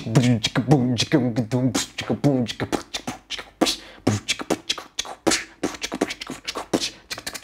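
Beatboxing: a voice wobbling rapidly up and down in pitch for about two seconds, then a run of sharp, clicking, snare-like mouth percussion.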